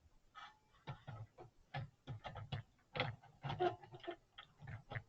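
Irregular plastic and metal clicks and knocks as a CPU heatsink-and-fan cooler is handled and fitted back onto the motherboard over freshly applied thermal paste.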